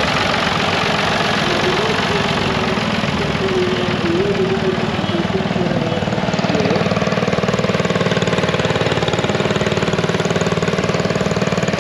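A Ford 4000 tractor's engine running as it drives past, then, from about six seconds in, a Bolens garden tractor's small engine running close by with a fast, even pulse.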